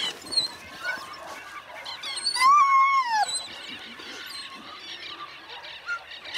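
A dog whining, one long call about two and a half seconds in that rises, holds and then falls in pitch.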